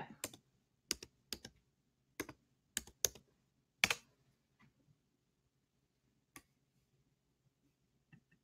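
A quick, irregular run of about ten light, sharp clicks and taps in the first four seconds, then near silence with two faint clicks later on.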